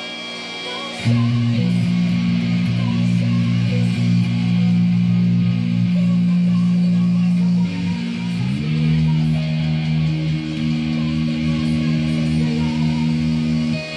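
A band plays an instrumental passage, with guitar and bass holding long low notes. It is quieter for the first second, then louder, and the notes slide to a new pitch about eight and a half seconds in.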